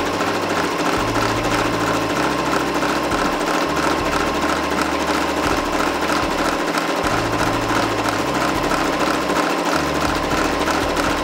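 Electric household sewing machine running steadily at speed, stitching a seam through bag fabric, with a fast, even needle rhythm.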